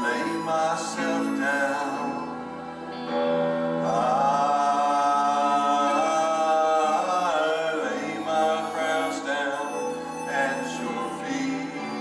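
Gospel song: a singing voice carries the melody over held instrumental chords, loudest in the middle of the stretch.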